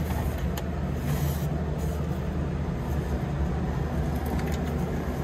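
Steady low mechanical hum of running machinery, with a few light clicks and a brief hiss about a second in.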